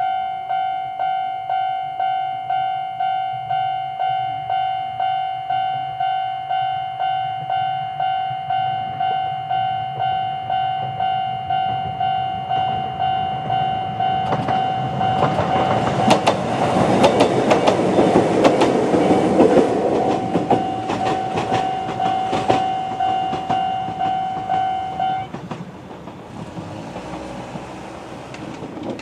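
Japanese railway level-crossing alarm of the older electronic type ringing a steady repeating ding, about one and a half strokes a second. From about halfway through, a Kōnan Railway 7000 series electric train approaches and passes over the crossing with loud clickety-clack from the wheels on the rail joints; the alarm stops about 25 seconds in as the train runs off.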